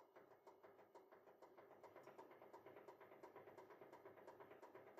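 Faint, steady hum of a hydraulic press's pump running with a rapid, even pulse while the press builds tension load on a bolt.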